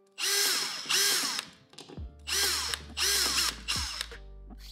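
Makita DFS452 18 V brushless cordless drywall screwdriver driving screws into a plasterboard ceiling, in four short bursts, each about half a second, in two pairs, the motor pitch falling within each burst. Background music with low steady tones comes in about halfway through.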